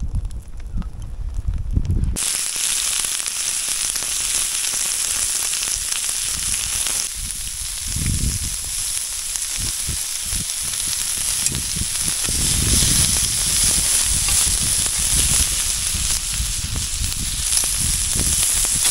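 Meat and meatballs sizzling on a grill over a campfire: a dense, steady hiss that starts abruptly about two seconds in, after a low rumble.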